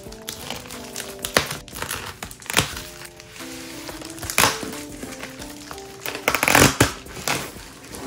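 Bubble wrap being cut and pulled off a cardboard keyboard box, crinkling in several short bursts, loudest for about a second near the end. Soft background music with sustained notes plays underneath.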